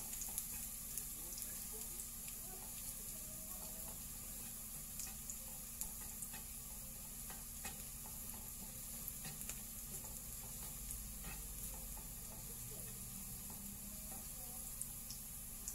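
Chopped garlic sizzling in hot oil in a non-stick frying pan as it fries toward golden brown, with scattered light clicks and scrapes from a spatula stirring it.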